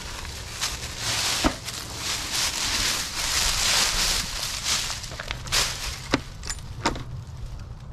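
Dry fallen leaves crunching and rustling under someone kneeling and shifting about, swelling and easing off, with a few sharp knocks along the way.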